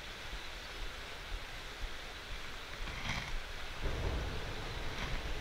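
Steady rush of a riffled trout stream. About four seconds in, a louder splashing joins it as a hooked trout thrashes at the surface.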